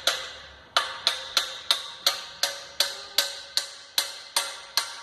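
Rapid, even hammer blows on a truck gearbox part, about three a second with a short metallic ring after each, driving it in until it bottoms out and seats.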